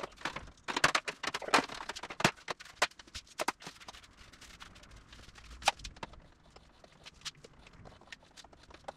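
Irregular clicks, taps and scrapes of hand tools on aluminium aircraft skins during deburring, thick for the first few seconds and sparser after, with one louder click near the middle.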